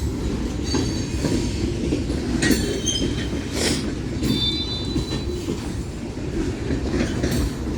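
Freight cars of a manifest train rolling past: a steady rumble of steel wheels on rail, with a few rail-joint clacks and several brief high-pitched wheel squeals.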